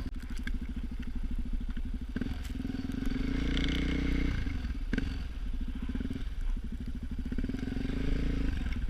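Motorcycle engine running with a steady pulse; it gets louder and smoother for about two seconds a couple of seconds in, then settles back, with one sharp click near the middle.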